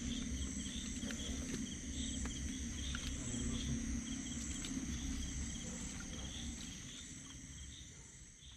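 Insects trilling steadily, with short chirps about twice a second, over a low rumbling noise; everything fades out near the end.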